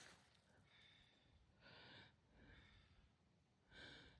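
Near silence, with a few faint short sounds about halfway through and again near the end.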